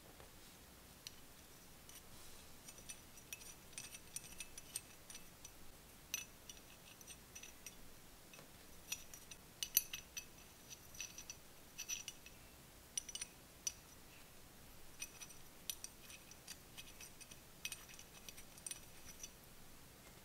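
Light, irregular metal clicks and ticks of small threaded parts, miniature spark plugs, being handled and screwed into a model engine's metal cylinder head.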